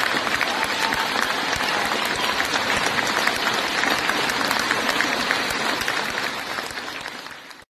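Audience applauding, a dense steady patter of many hands clapping that fades near the end and then cuts off abruptly.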